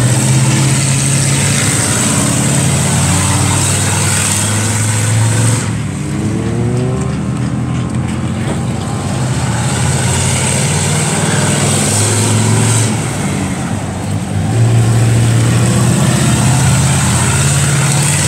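Engines running loudly, with a rise in revs about six to seven seconds in and the sound growing louder again near the end.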